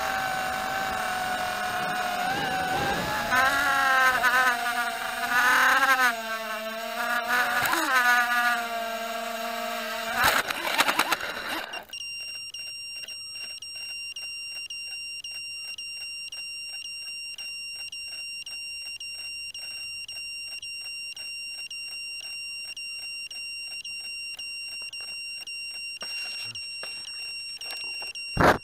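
Walkera Rodeo 110 mini quadcopter's motors whining, the pitch rising and falling with throttle, until they cut out abruptly about twelve seconds in. A steady, high electronic beeping then runs on, with a short knock near the end.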